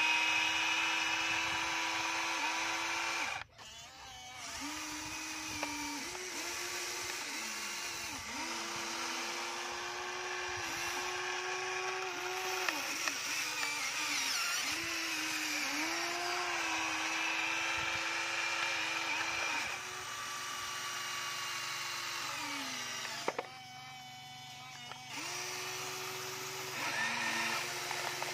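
Electric motors of a Huina remote-control toy excavator whining in runs of a second or few, stopping and restarting and changing pitch as the boom, arm and bucket move. A few faint clicks come near the end.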